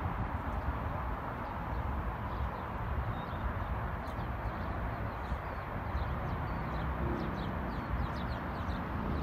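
Toyota 3UR-FE 5.7-litre V8 idling steadily under an open hood, with faint bird chirps high above it.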